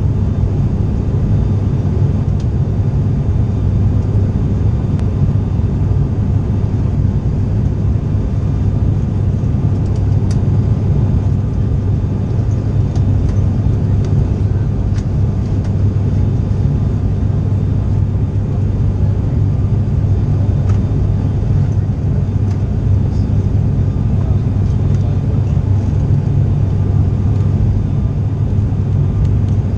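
Steady low drone of an ATR 72-500's twin Pratt & Whitney PW127 turboprops and six-blade propellers, heard inside the passenger cabin during the approach.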